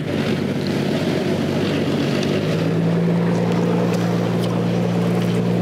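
Boat engine running steadily, its low hum growing a little stronger a couple of seconds in, with wind and sea-water noise over it.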